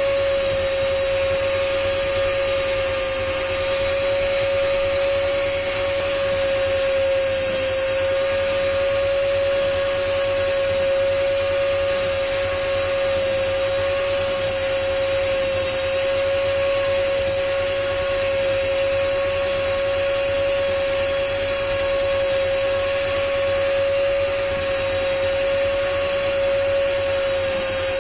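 Hand-held rotary cutting machine for jewellery running steadily with a high, even whine, its cutter working on a gold pendant to cut a design into it.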